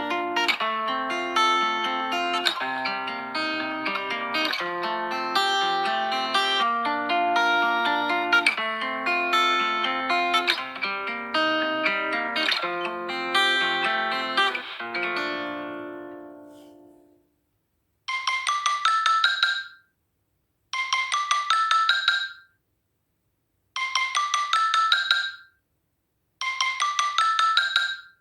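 Samsung Galaxy J7 (2017) ringtones playing from the phone. A many-note melody fades out about 17 seconds in, and a second tone follows: a short phrase of quick notes repeated four times with short gaps between.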